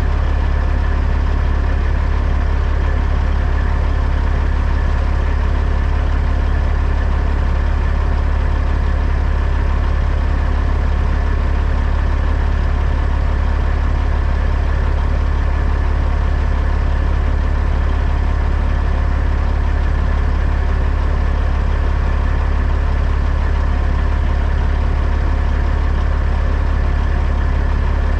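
Heavy truck's diesel engine running steadily, a constant deep hum with no change in pitch or level.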